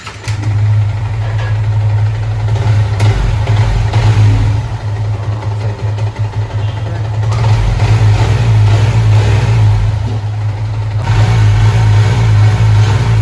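Yamaha R15 V3's 155 cc single-cylinder engine starting and running, with the revs rising a few seconds in and again near the end. It is being tested after a valve clearance adjustment meant to cure a knocking noise.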